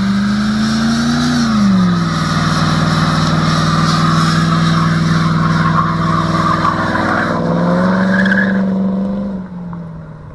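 Loud engine running, its pitch rising briefly, then dropping to a steady lower note about two seconds in and rising again near the end before fading out.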